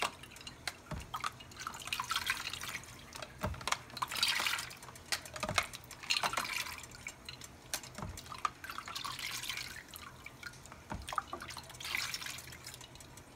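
Ice water poured from a plastic cup into a plastic tub in several separate pours, trickling and splashing, with a few short knocks in between.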